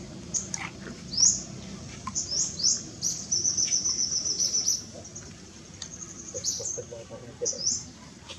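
Wild birds chirping: short, high chirps that sweep upward, repeated, with a fast high trill for about two seconds in the middle.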